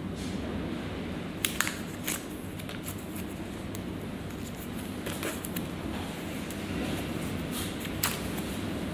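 Photo album pages being turned by hand: plastic sleeves giving a few short crackles and clicks over a steady low background noise.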